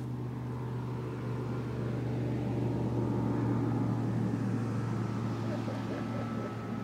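A motorboat's engine droning as the boat passes by on the river, a steady hum that grows louder over the first three seconds or so and then slowly eases off.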